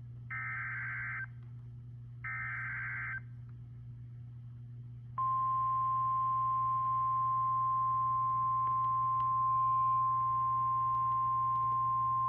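Emergency Alert System tornado warning: two short buzzy data bursts of the SAME header, each about a second long with a short gap between, then about five seconds in a steady single-pitched NOAA Weather Radio warning alarm tone that holds. A low steady hum runs underneath.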